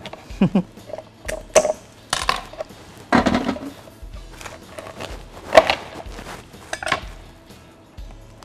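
Raw lobster shell crunching and cracking as its legs are cut away with kitchen scissors and pulled off by hand. The snips and cracks come one at a time at irregular intervals, with faint background music under them.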